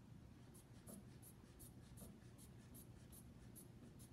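Faint, even ticking about two and a half times a second, with a soft low thump about once a second, from a stationary cycle ergometer being pedalled at a steady cadence.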